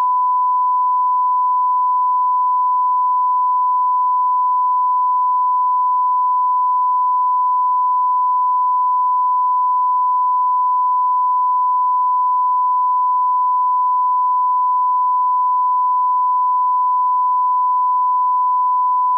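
Broadcast 1 kHz line-up test tone that accompanies colour bars: one steady, unwavering pure tone.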